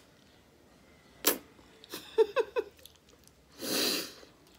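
Eating noises of a woman chewing a forkful of spaghetti: a sharp mouth smack about a second in, a few short squeaky mouth sounds around two seconds, then a loud breathy rush of air lasting under a second about three and a half seconds in.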